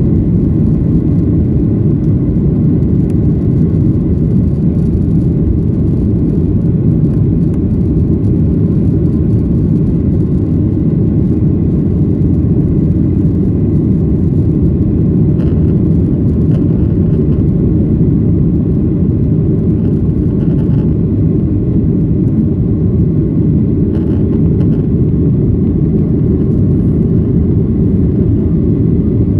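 Steady airliner cabin noise heard from a window seat: a constant low rumble of jet engines and airflow.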